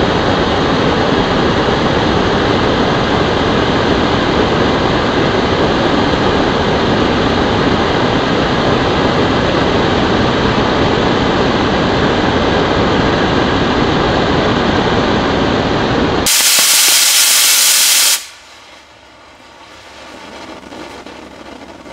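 Black-powder Estes model rocket engine burning, a steady, even rushing roar. About sixteen seconds in it turns to a brighter, louder hiss for a couple of seconds, then drops off sharply to a faint hiss as the burn dies.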